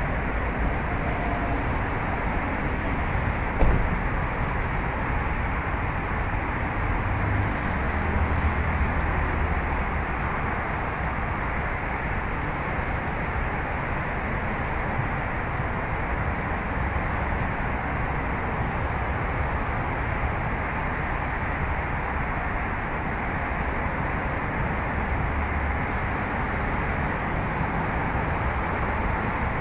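Steady road traffic noise, a dense rushing of tyres and engines, with a brief knock about three and a half seconds in.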